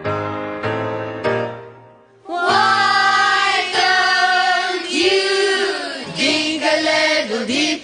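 Piano chords, then about two seconds in a Christian worship song starts: female voices singing together over backing music.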